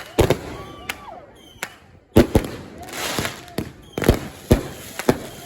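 Fireworks going off: a string of sharp bangs, several close together at times, with crackling hiss after some of them.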